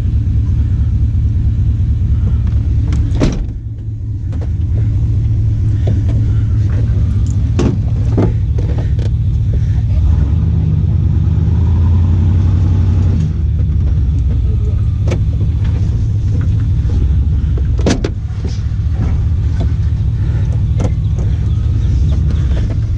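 Tow vehicle's engine running as the trailer is backed and jackknifed, pulling harder for a few seconds around the middle, with a few sharp knocks and clanks over it.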